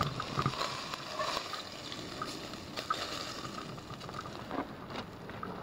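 Water boiling in a pot over a wood campfire: a steady bubbling hiss with scattered sharp crackles and clicks, some from metal tongs in the pot.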